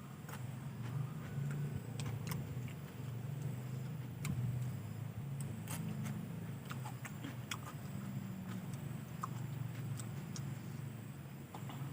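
Close-up mukbang eating sounds: chewing with scattered sharp clicks and taps at irregular intervals, over a steady low hum.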